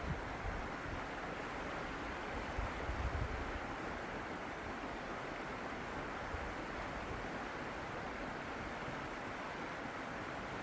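Steady rushing of water, with low wind buffeting on the microphone in the first few seconds.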